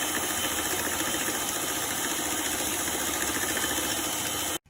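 Electric mixer running steadily, beating eggs and sugar together. It stops abruptly near the end.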